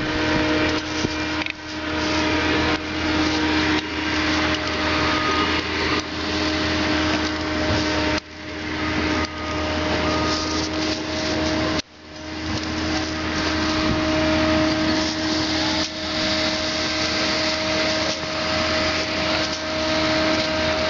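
Bobcat S630 skid-steer loader's diesel engine running steadily, a constant hum. The sound drops out sharply for a moment twice, about eight and twelve seconds in.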